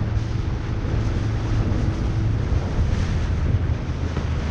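Wind buffeting the microphone over choppy water, with the steady low hum of a motorboat's engine running underneath.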